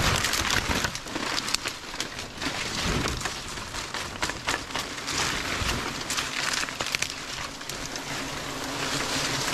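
Palm fronds and dry leaves rustling and crackling as they are handled and pushed aside: a steady hiss broken by many small sharp ticks.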